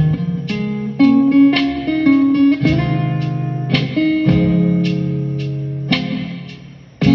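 Guitar playing slow, soulful chords that are struck and left to ring; the last chord fades away near the end.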